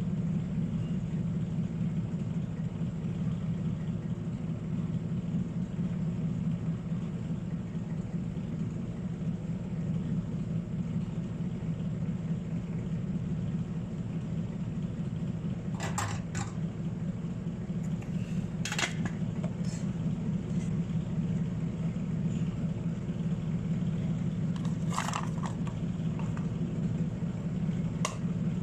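Steady low mechanical hum, as from a fan or motor, with a few sharp small clicks of hard objects scattered through the second half.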